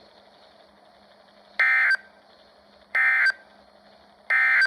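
Three short bursts of Emergency Alert System digital data tones from a weather radio, about a second and a half apart: the end-of-message code sent after the warning is read out.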